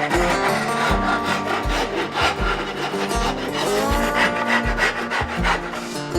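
A hand rasp scraping over walnut in repeated strokes, shaping a wooden stock. Background music with a steady bass beat plays underneath.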